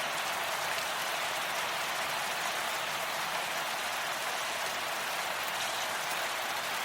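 Steady rain falling: an even, unbroken hiss of drops that keeps the same level throughout.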